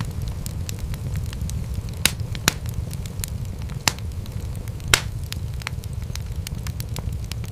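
Wood fire crackling in a fireplace: a steady low rumble of burning flames under frequent sharp snaps and pops, with a few louder pops about two, two and a half, four and five seconds in.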